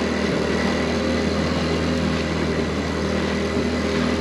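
Inflatable dinghy's outboard motor running steadily under way, an even, unchanging engine drone.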